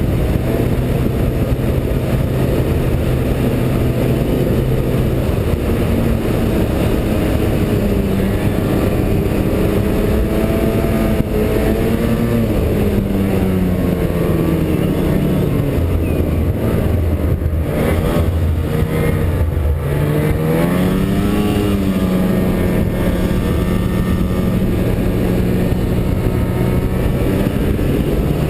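Snowmobile engine running under way at a steady pitch. The revs drop about two-thirds of the way through, then climb again and hold.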